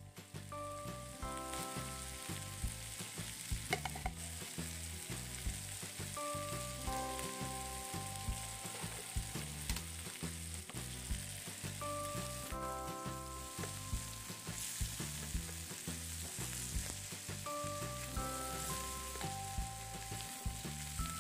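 Chopped chilies, melinjo skins and dried tiny shrimp sizzling steadily in an oiled frying pan while being stirred, with frequent short clicks and scrapes of the stirring utensil against the pan. Soft background music runs underneath.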